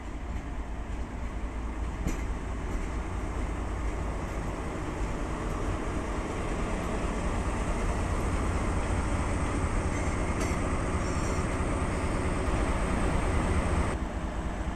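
DE10 diesel-hydraulic locomotive's V12 diesel engine running as it rolls slowly alongside and draws to a stop, growing louder as it comes closer. There is a brief high squeal about ten seconds in, and the engine note drops back near the end as it halts.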